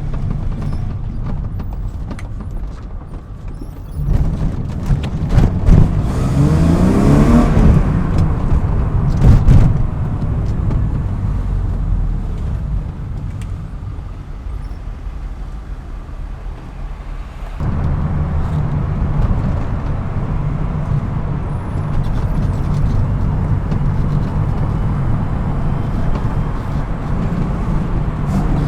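BMW E36 M3's straight-six engine while driving, heard from inside the car. About four seconds in it accelerates hard, its pitch rising with the revs, then it eases back to a steadier cruise and picks up again a little past halfway.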